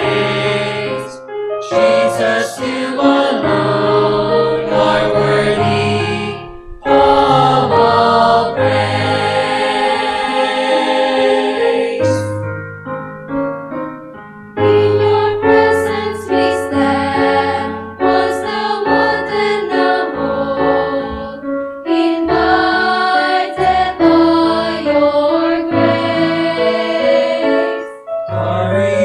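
Mixed choir of women's and men's voices singing a gospel hymn arrangement in parts, with piano accompaniment underneath. The singing breaks off briefly about six and a half seconds in, then goes quieter for a couple of seconds before coming back in full.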